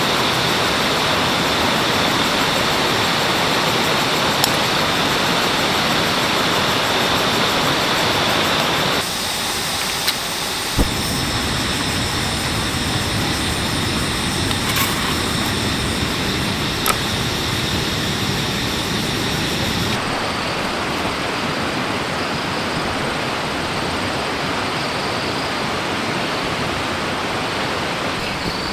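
Stream water rushing steadily, the sound shifting abruptly twice where the scene changes. Over the last part, insects chirp faintly, and there are a few light clicks.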